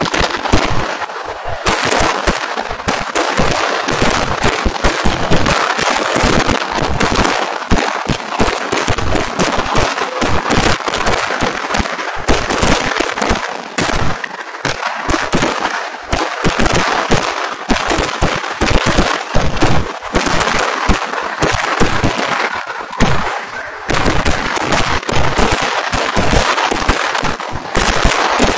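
Vedikettu, Kerala temple-festival fireworks, going off in a dense barrage: a rapid, unbroken string of bangs and cracks too fast to count.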